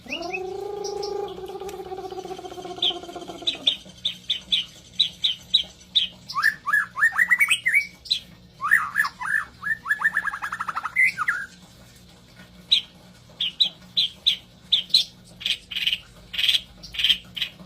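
White-rumped shama (murai batu) song used as a lure. A long low held note opens it, then rows of quick high ticking notes, fast sweeping trills in the middle, and another quick run of notes near the end.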